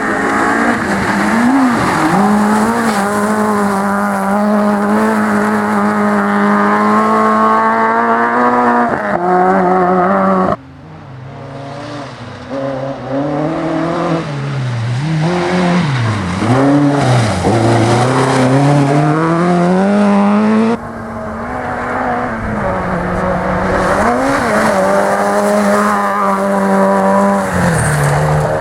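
Rally car engines revving hard, the pitch climbing and dropping through gear changes and lifts, with some tyre squeal. The sound cuts abruptly twice, about a third and two-thirds of the way through, to another car. After the first cut a car starts quieter and grows louder as it approaches.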